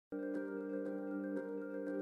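Background music played on mallet percussion like vibraphone or marimba, with ringing notes struck about twice a second.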